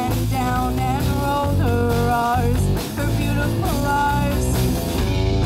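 Live rock band playing a song: drum kit, bass and electric guitar, with a melody line carried in held notes over them.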